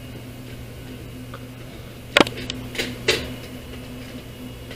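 Three sharp plastic-and-metal clicks within about a second, the first the loudest, as latches and connectors inside a Dell PowerEdge R710 server are worked by hand, over a steady low hum.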